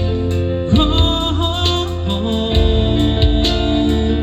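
Music from a worship song: guitar over sustained chords and a pulsing bass, in an instrumental break between sung lines.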